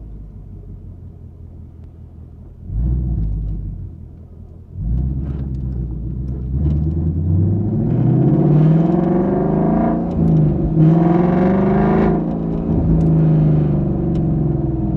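2021 Ford Mustang GT's 5.0-litre V8 exhaust, heard from a mic inside the trunk. It rumbles low at first, with a short rev about three seconds in. From about five seconds in it pulls hard, rising in pitch, with a gear change about ten seconds in, then rises again and settles to a steady cruise.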